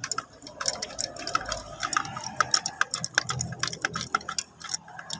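Rapid, irregular light clicks and taps from hands working at the bolts and spark plug wells on the valve cover.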